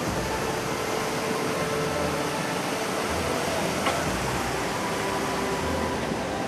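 Steady rush of a swollen, fast-flowing cold-lahar flood channel, muddy water carrying volcanic sand: an even, unbroken hiss.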